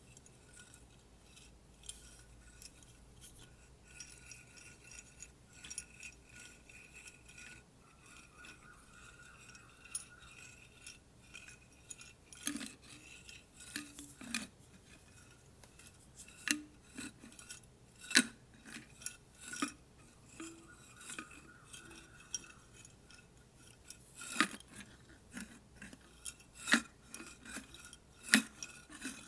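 A bottle and strips of paper being tapped and handled close to the microphone for ASMR. A faint steady ringing runs through the first half. From about halfway the taps and clicks grow sharper and more frequent, in an irregular pattern.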